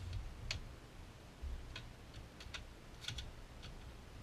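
Handling noise: a scattering of light, irregular clicks and ticks, with a few dull low bumps.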